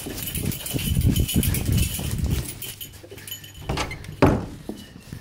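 A Labrador-bloodhound cross sniffer dog snuffling rapidly at close range while searching along the foot of a wall. Two sharp knocks come near the end, the second louder.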